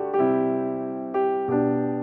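Background music: electric piano playing soft chords, each struck and left to fade, with new chords about a second in and again shortly after.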